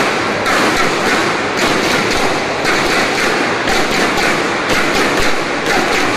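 Badminton rally: racket strikes on the shuttlecock about once a second, over a steady loud din of spectators in the hall.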